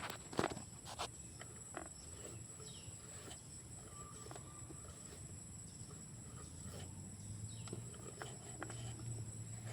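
Faint outdoor ambience: a steady, high insect drone, with a few sharp clicks and light rustles in the first second and scattered faint ticks later.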